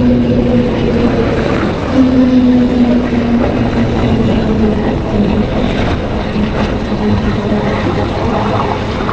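Honda Hornet 2.0 motorcycle's single-cylinder engine running at cruising speed. The engine note picks up briefly about two seconds in, then slowly eases lower as the bike settles. Wind rushes over the microphone throughout.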